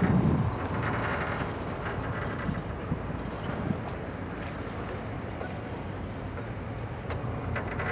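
Marina ambience around moored boats: a steady wash of wind and harbour noise, with a few faint knocks.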